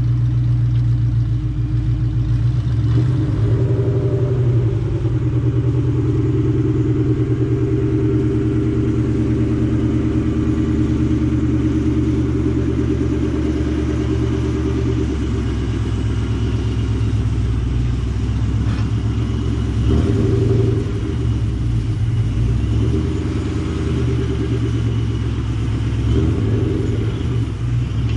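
Ford Mustang engine running through a Borla Attak cat-back exhaust: a steady, low exhaust drone with small shifts in pitch now and then.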